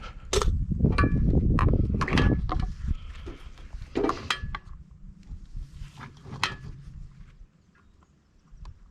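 Metal parts and hand tools clinking and knocking while a safe door is dismantled, a few strikes ringing briefly, with heavy handling rumble in the first few seconds. The strikes thin out and fade near the end.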